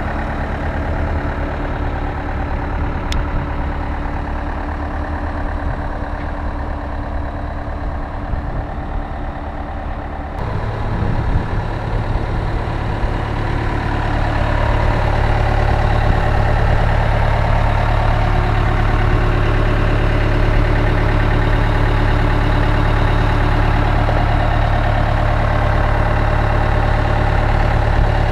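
2013 Cat 236B3 skid steer's diesel engine running. It changes abruptly about ten seconds in, then rises in pitch and grows louder a few seconds later and holds there.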